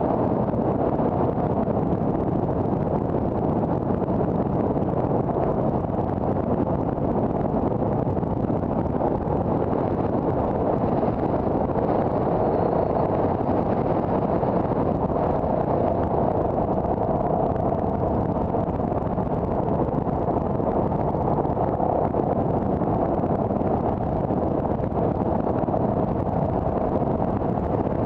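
Car driving: steady road and engine noise.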